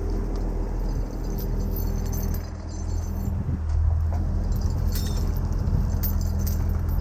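Heavy diesel engine idling steadily, with scattered light metallic clinks.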